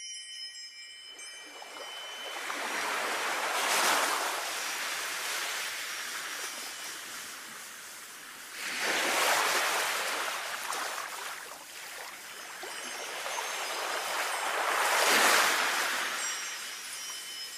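Sea waves washing up and drawing back in three slow swells, each building and fading over several seconds. Wind chimes ring faintly near the end.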